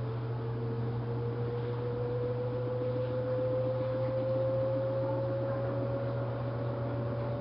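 LG washing machine running: a steady low hum with a motor whine that rises slowly in pitch as the drum speeds up.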